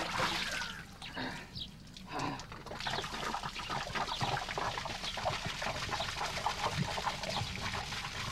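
Water poured out of a clay pot, splashing onto a wet stone slab, with a dense steady patter of splashes from about three seconds in.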